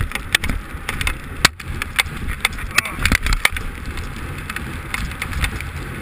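Skis running through soft snow, a continuous hiss with wind buffeting the microphone, broken by frequent sharp clicks and knocks.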